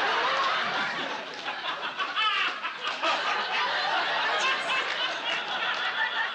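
Studio audience laughing at a joke, a steady wash of many people's laughter.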